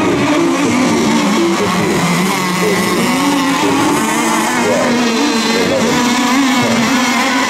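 Several radio-controlled racing boats running together on the water, their motors overlapping in a loud, continuous buzz whose pitches waver up and down as the throttles change.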